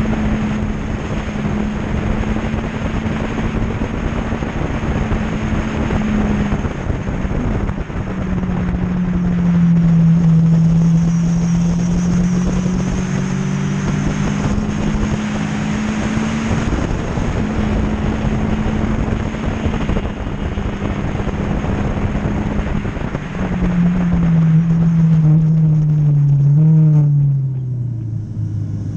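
Sports motorcycle engine at speed, heard onboard over heavy wind noise on the microphone. The engine note holds steady, drops about seven seconds in and climbs slowly again, then falls near the end as the revs come down for a corner.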